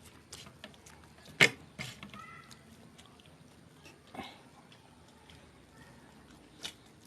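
Quiet eating sounds: a few short sharp clicks and smacks, the loudest about one and a half seconds in, another near the end.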